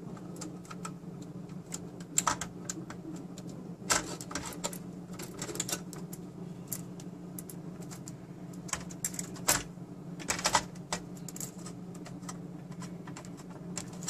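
Plastic cable connectors clicking and wiring rattling as the cables are unplugged from an HP ProLiant N54L MicroServer's motherboard: scattered, irregular clicks, a few of them sharper, over a steady low hum.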